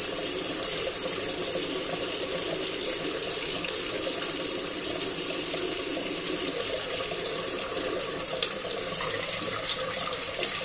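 Kitchen tap running steadily, its stream splashing onto a stainless steel sink's drain strainer.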